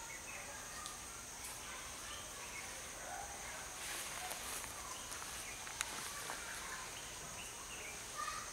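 Forest ambience: a steady high-pitched insect drone with scattered short bird chirps, a brief rustle about four seconds in and two sharp clicks around six seconds in.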